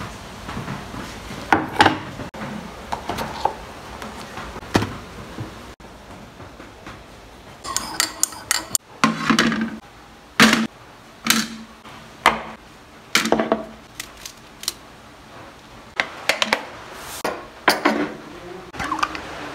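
Dishes and cutlery being handled on a wooden table: a ceramic mug, a plate and metal cutlery clinking and knocking in a string of irregular sharp knocks, some with a short ring.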